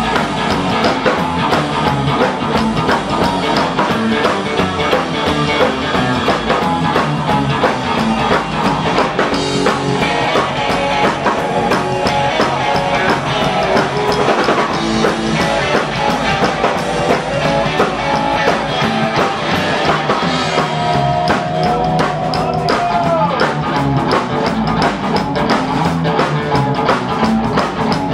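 Live rockabilly band playing at full tilt: slapped upright double bass, orange Gretsch hollow-body electric guitar and drum kit with a steady beat.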